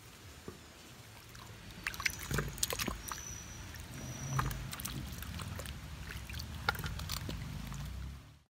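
Water splashing and irregular knocks as pieces of young jackfruit are lifted out of a bowl of water and dropped into a clay pot. The sound stops abruptly near the end.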